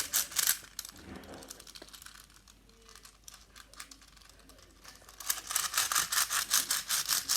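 A plastic twisty-puzzle cube being turned and handled in the hands: a rapid run of clicks and rattles at the start, a few faint ticks in the middle, then a fast clicking again, about seven clicks a second, from about five seconds in.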